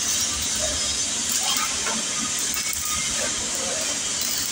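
Electric arc welding: the arc gives a steady, even hiss and crackle throughout.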